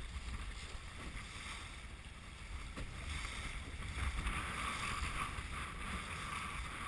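Wind buffeting the microphone and water rushing along a sailboat's hull under way, the water hiss growing louder about three seconds in.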